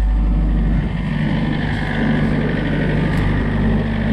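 Excavator's diesel engine running steadily. About a second in its deep low note drops away and the running sound becomes rougher.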